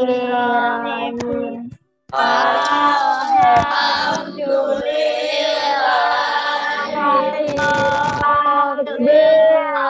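A child singing a prayer over a video call, with a short break about two seconds in.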